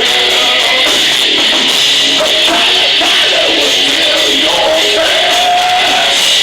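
Live rock band playing loudly with guitar and drums, a wavering melody line sliding and then held for about a second near the end.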